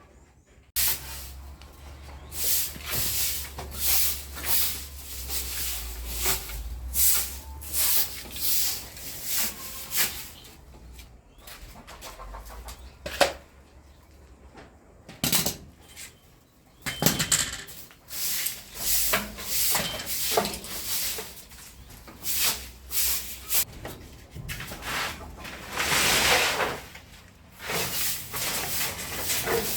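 Timber being cut with a hand saw in runs of rhythmic strokes that pause midway, with a single sharp knock about 13 seconds in.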